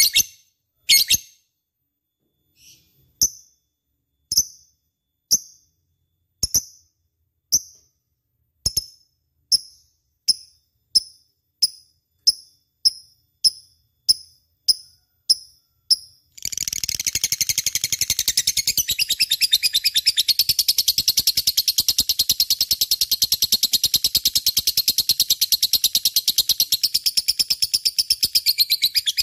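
Lovebird calling: sharp, shrill single chirps, at first about one a second and speeding up, then from a little past halfway one loud, fast, unbroken chatter.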